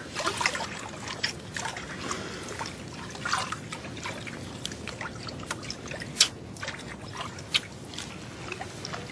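Bathwater trickling and dripping in a bathtub, with small irregular drips and splashes, one louder drop about six seconds in.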